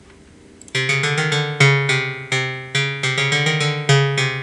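FL Studio 8's default "ARP" plucked synth preset playing a fast pattern of short plucked notes, each dying away quickly. It starts just under a second in.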